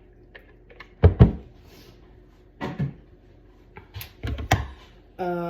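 Hard plastic knocks and clatters as chopped chicken is emptied from a Tupperware chopper bowl into the pressure cooker pot. There are two knocks about a second in, one more shortly after, and a quick cluster around four seconds in.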